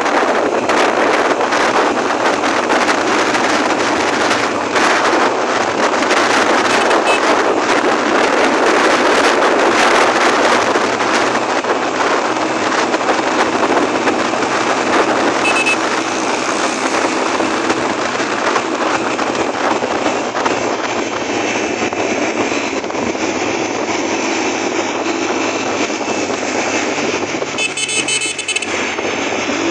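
Motorcycle riding in city traffic: wind buffeting the microphone over a steady mix of engine and road noise. A horn sounds briefly near the end.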